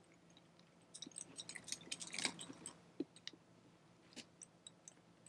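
Faint, scattered clicks and light handling noises of plastic fittings as the pump hose is fitted to the inflatable kayak seat's backrest valve.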